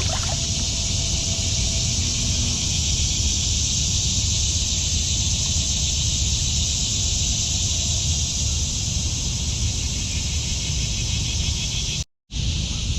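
Steady, high-pitched summer insect chorus droning without a break, over a low rumble of wind on the microphone. The sound drops out for a split second near the end.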